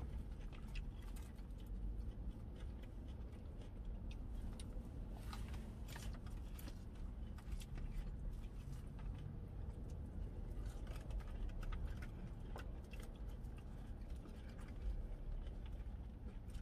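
Plastic forks clicking and scraping in plastic salad bowls, with chewing, as several people eat salad. A low steady rumble runs underneath.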